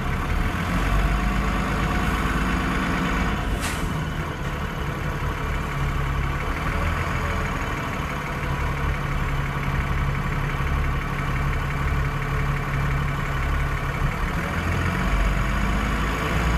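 Transbus Trident double-decker bus's diesel engine running steadily, heard from inside the passenger saloon. A brief hiss comes about four seconds in.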